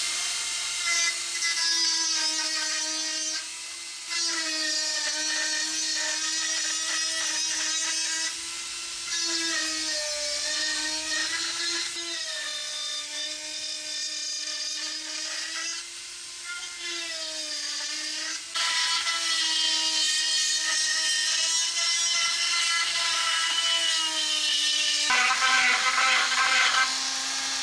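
Handheld rotary tool running at high speed with a 3 mm drill bit dragged along the slot in a wooden lure body to widen it. Its steady whine wavers and dips in pitch as the bit bites into the wood, dropping lower with a rougher grinding sound near the end.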